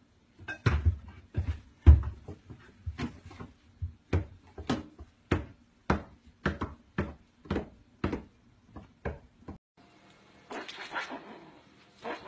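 Repeated knocks and clatters, about two a second, of a toddler moving around among metal pots and pans inside a kitchen cabinet. They stop about ten seconds in and a fainter, noisier sound follows.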